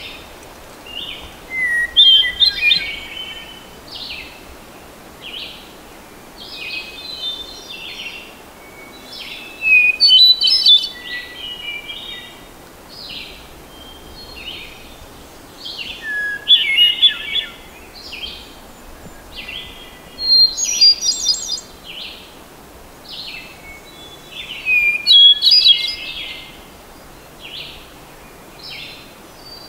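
Hermit thrush singing: loud song phrases every few seconds, with fainter bird song filling the gaps between them.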